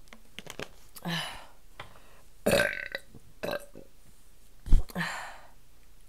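A woman burping about four times in a row from air swallowed while chugging bottled water, with a short thump just before the last burp.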